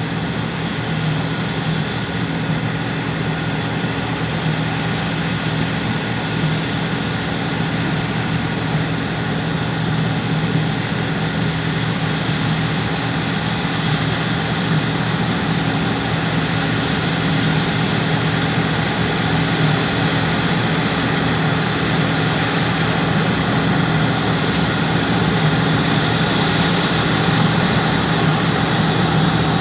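John Deere 9580 WTS combine harvester running steadily while cutting winter barley: a continuous engine drone over the rush of the threshing machinery, growing somewhat louder toward the end.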